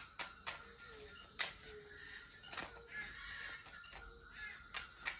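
Oracle cards being shuffled and drawn by hand: soft rustling with scattered light clicks and taps as cards slap together and are laid down.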